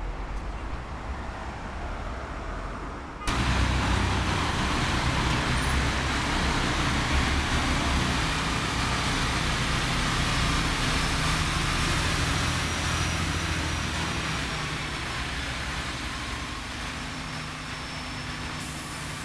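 Low traffic rumble, then about three seconds in the much louder, steady running of a diesel flatbed crane truck's engine cuts in and carries on, easing off slightly toward the end.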